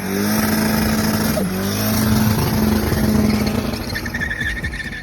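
Turbocharged Chevrolet Corsa four-cylinder engine held at high revs during a burnout, with a wide noisy haze over it. The revs dip briefly about a second and a half in and climb back, and the sound fades near the end.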